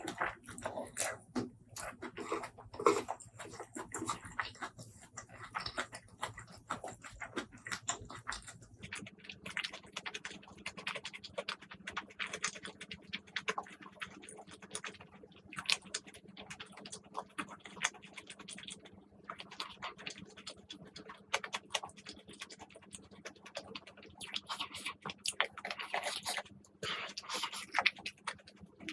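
A person eating close to the microphone: wet chewing and lip smacking with many small, crisp clicks and crunches, coming irregularly.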